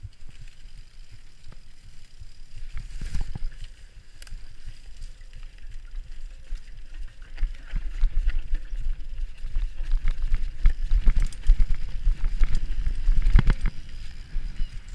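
Mountain bike ridden fast over rough dirt singletrack: a low wind rumble on the microphone with a run of knocks and rattles as the bike jolts over bumps. It grows louder through the second half, with sharp knocks about three seconds in and near the end.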